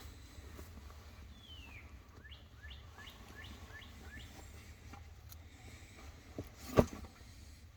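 A songbird singing: one falling whistled note, then a run of about six quick, rising-and-falling whistled notes, over a faint low outdoor rumble. A single sharp knock near the end is the loudest sound.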